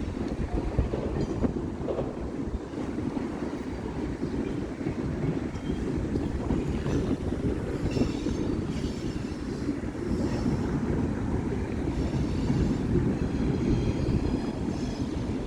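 Freight cars of a long manifest train rolling past: a steady rumble of steel wheels on the rails, with faint high wheel squeals now and then.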